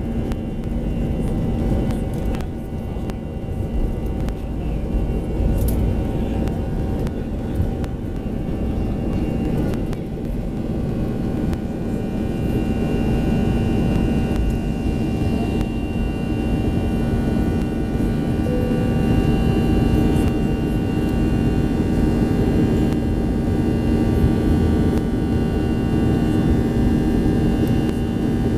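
Airbus A320's CFM56 engines at takeoff thrust heard from inside the cabin, with a deep rumble from the takeoff roll and lift-off partway through. Through the climb the engines keep up a steady drone with a whine that grows a little stronger about halfway through.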